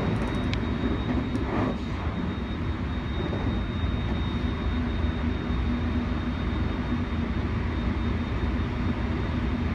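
Electric train running at a steady speed: a continuous low rumble with a faint steady high whine, and a brief sliding tone about one and a half seconds in.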